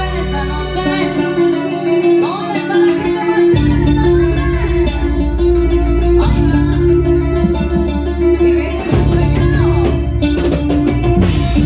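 Instrumental band music led by guitar over a bass line, with a steady beat of short high ticks coming in about two seconds in.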